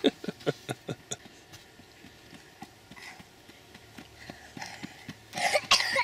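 Running footsteps on a dirt forest path, about five quick steps a second at first, then fainter. Near the end, a loud, short breathy vocal outburst, like a cough.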